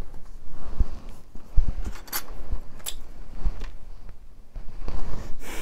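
Handling noise from fingers working a gold clip-on earring: soft rustling and low knocks, with two sharp clicks about two and three seconds in.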